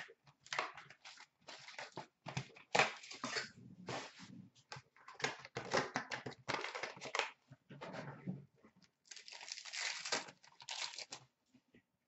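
Hockey card packs being torn open by hand, the wrappers tearing and crinkling in quick irregular bursts that stop shortly before the end.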